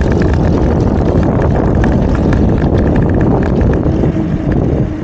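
Wind buffeting the action camera's microphone while riding a bicycle, a steady loud rumble that is heaviest in the low end.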